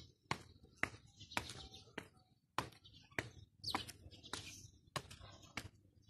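Sharp, irregular taps and clicks, roughly two a second, with a couple of short raspy chirps from a young cockatiel in pin feather about midway.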